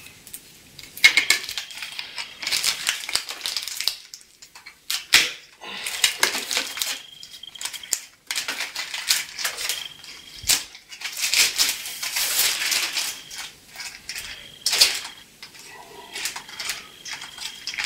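Tight plastic wrapping crinkling and rustling in irregular bursts as it is pulled off a replacement steel blade for a plastering spatula, with a few sharp clicks.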